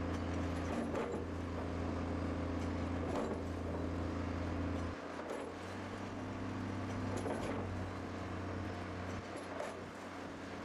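Heavy machine's engine running steadily with a low drone, which shifts and thins about five seconds in; a few faint knocks.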